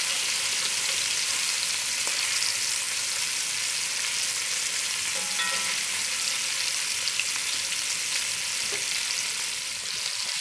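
Beef short ribs sizzling as they sear in hot fat in a cast-iron Dutch oven: a steady frying hiss with small pops, the meat browning on each side.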